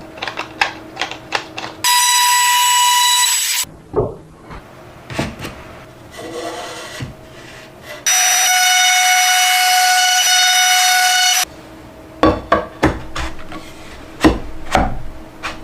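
Wood being worked by hand: a run of short knocks and taps of wooden pieces, cut by two loud bursts of a power tool's steady high whine, the first about a second and a half long and the second about three seconds long, each starting and stopping abruptly.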